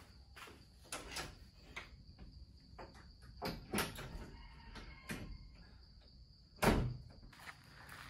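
Footsteps and knocks as a wooden door's latch is worked and the door is opened, then a heavy thud about two-thirds of the way through as the door shuts. Insects keep up a steady high-pitched drone throughout.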